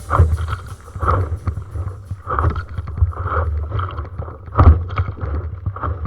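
Sea water splashing and slapping around an inflatable stand-up paddleboard in irregular bursts, about once a second, with wind rumbling on the microphone.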